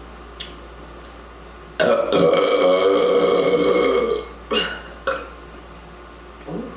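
A woman's long, loud burp lasting about two seconds, brought up by gulping carbonated root beer, followed by two short sounds a little over half a second apart.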